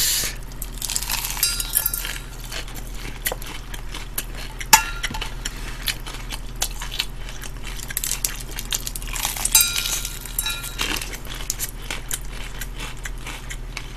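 Eating crispy fried chicken: repeated crunching and chewing close to the microphone, with light clinks. Twice a stainless steel bowl rings briefly when bits of fried batter drop into it.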